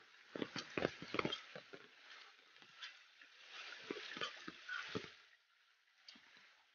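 Footsteps on a wet, muddy dirt path: irregular soft steps, clustered in the first second and a half and again around four to five seconds in, over a steady hiss.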